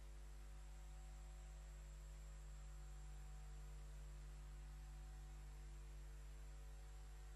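Faint, steady electrical hum and hiss on an idle audio feed: several constant tones that hold unchanged, with no other sound.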